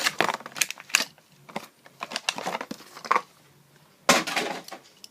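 Plastic blister packaging of a Hot Wheels die-cast car crinkling and crackling in the hands as it is handled and opened: irregular crackles and clicks, with a louder burst about four seconds in.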